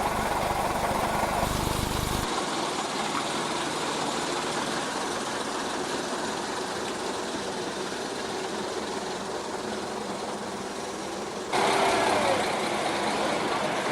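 Engines of heavy vehicles, a long loader, transporter and mobile crane, running and idling as they manoeuvre. The sound changes abruptly about two seconds in and again near the end, where it is briefly louder.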